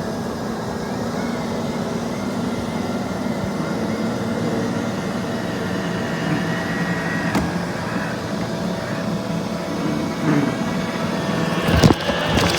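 Robot vacuum cleaners running: a steady hum of motors and brushes with a faint whine. There is a faint click about seven seconds in, and a sharp knock near the end.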